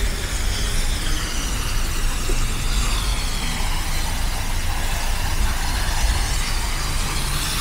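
Footsteps crunching through snow over a steady low rumble of city traffic.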